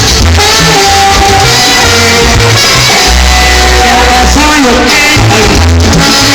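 Loud salsa music with a lead singer and a steady bass line, played through a rented PA sound system during a sound check.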